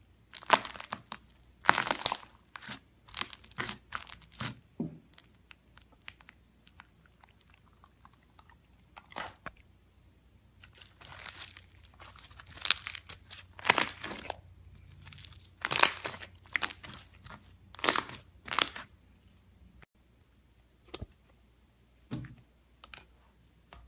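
Slime being squeezed, pressed and pulled by hand, giving irregular runs of crackling and popping with short pauses between.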